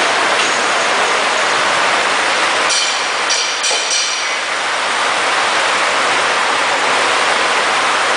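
Turret lathe running with a steady noisy whir while a turret tool cuts the spinning bar stock. About three seconds in, a brief metallic clatter with ringing as the turret pulls back and swings to the next tool.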